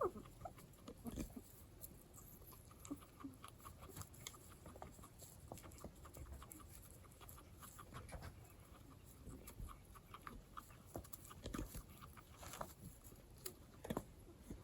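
Guinea pig sounds: a few faint short calls among many small scattered clicks and crunches.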